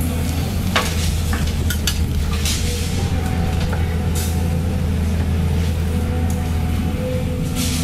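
Volvo EC210B excavator's diesel engine running steadily under hydraulic load as the bucket empties dirt and rubble into a dump truck bed. Debris clatters in, with a sharp knock about a second in and a brief hiss near the end.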